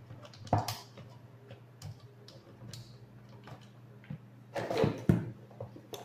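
Handling noise as a power cord is fed through the hollow plastic column of an electric fan's stand: light scattered clicks and rubbing, with louder knocks about half a second in and again near the end.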